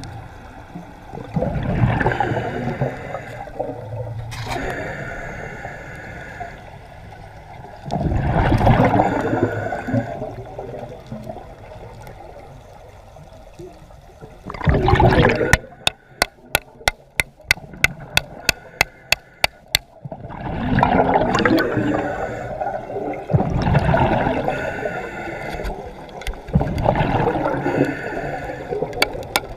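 Water rushing and gurgling in repeated surges every few seconds, as heard by a microphone in or at the surface of the sea. In the middle comes a quick, even run of sharp clicks, about five a second, lasting some four seconds.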